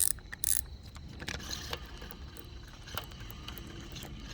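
Fishing reel and rod being worked against a hooked fish: two sharp metallic clicks about half a second apart at the start, then faint scattered ticking over a low, steady rumble.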